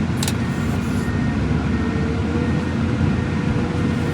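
A vehicle driving with its engine and road noise making a steady low rumble, a short sharp click about a third of a second in, and a faint steady whine near the end.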